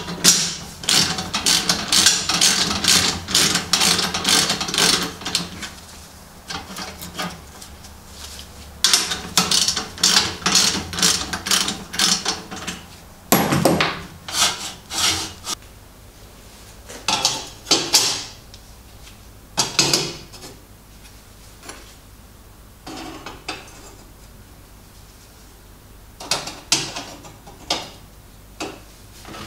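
Ratchet wrench tightening bolts on a steel angle bracket: two runs of quick rasping ratchet clicks, then a few scattered knocks and clatters of metal parts being handled.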